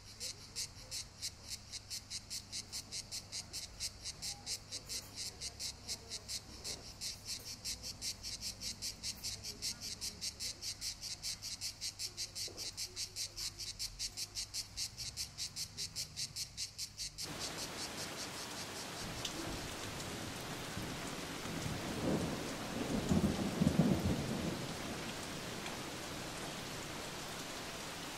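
High, even chirping pulses, about four a second, cut off abruptly about 17 seconds in. Steady heavy rain takes over, with a rumble of thunder swelling around 22 to 24 seconds.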